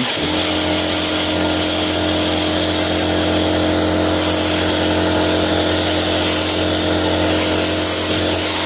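Parkside PDSP 1000 D5 pneumatic sandblasting gun hissing as it blasts sand with compressed air at about 6 bar. An air compressor starts right at the beginning and runs with a steady hum. The blasting hiss drops off at the very end while the compressor keeps running.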